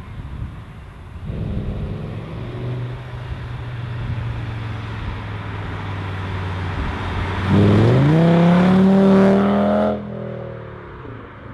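Audi S8's 5.2-litre V10 with a custom exhaust approaches at steady low revs. About two-thirds of the way in, a kickdown makes the revs jump and the car accelerates hard past, much louder, its note rising steadily. The sound drops suddenly near the end and is fainter as the car pulls away.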